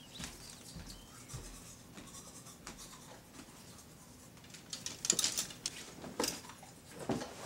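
Clothes hangers scraping and clacking along a closet rail as garments are pushed aside. A scratchy cluster comes about five seconds in, with two sharper scrapes after it; before that there is only faint rustling.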